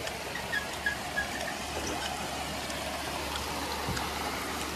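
Water running and splashing steadily where it pours from an irrigation pipe into a dirt channel. A few short high chirps sound in the first second and a half.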